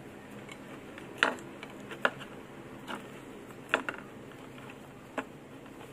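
Black vinyl electrical tape being pulled off the roll and wrapped around a twisted wire splice: five short crackles and clicks, the loudest about a second in and just before the four-second mark.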